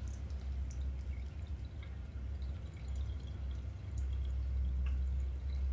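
Faint, scattered water drips over a steady low hum.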